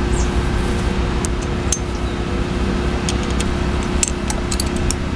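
Light metallic clicks of a hex key turning the tappet cover bolts on a Royal Enfield Meteor 350 cylinder head, over a steady low hum with a faint constant tone.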